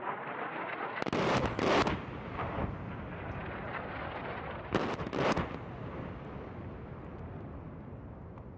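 Two distant AGM-65 Maverick missile warhead explosions on target vehicles, about four seconds apart: each a sharp blast followed by a rolling rumble that slowly fades.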